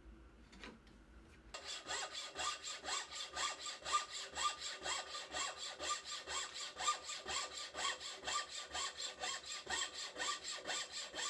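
Thin-bladed wooden frame saw cutting through a maple block, starting about a second and a half in and keeping up a quick, even rhythm of strokes.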